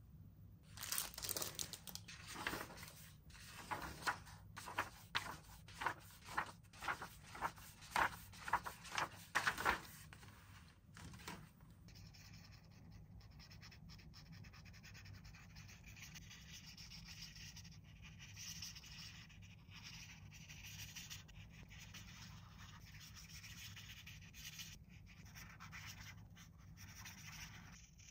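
Packaging being handled and rubbed: a run of short scraping strokes, about two a second, for roughly the first ten seconds, then quieter rustling.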